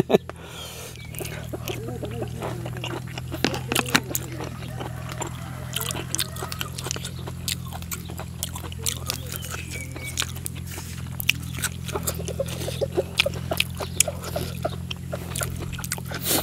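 Close-miked eating sounds: chewing and mouth clicks from a mouthful of raw diced beef with fresh herbs, irregular and sharp. A few brief voice sounds early on, over a low steady hum.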